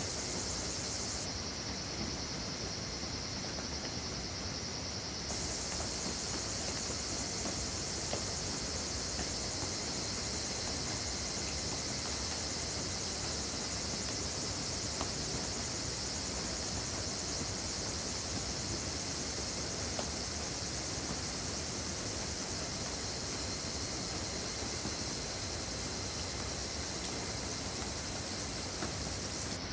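Steady rain falling on a wood, an even hiss with no pauses; the high part of the hiss gets louder about five seconds in.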